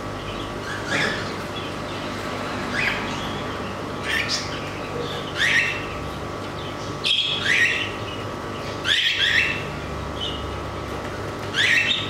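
Cockatiels in a cage giving short rising chirps, about nine in all, some in pairs, every second or so, over a steady low background hum.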